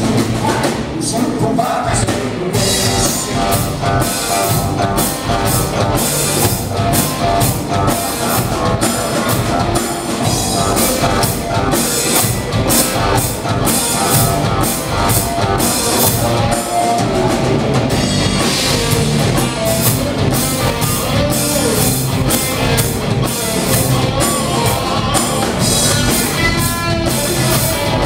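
Live rock band playing: electric guitars over a drum kit beating a steady rock rhythm, loud and continuous.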